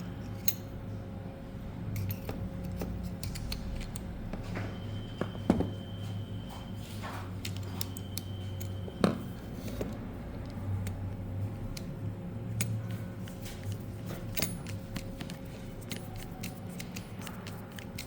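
Scattered clicks and taps of small plastic and metal parts being handled, as the blade of a cordless electric scissors is taken out and replaced, over a steady low hum.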